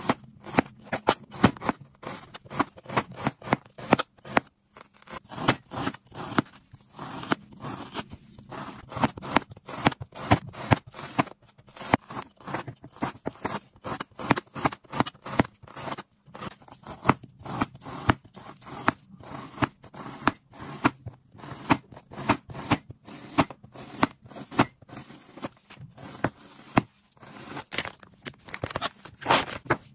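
Chinese cleaver slicing through food on a plastic cutting board: a rapid run of sharp cutting strokes and knocks on the board, broken by a few short pauses.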